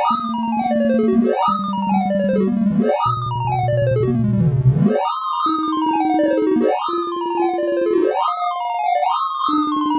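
Sound of Sorting sonification of gnome sort: a rapid stream of short synthesized beeps whose pitch follows the array values being compared. The pitch repeatedly steps downward as an element is swapped back toward its place, then jumps back up to start the next run, over a lower held tone.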